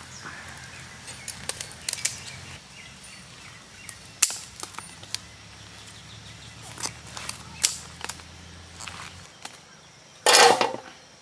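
Scattered sharp clicks and taps from handling live spiny lobsters and snipping them with scissors, with a louder clattering burst near the end as a lobster goes into a metal plate.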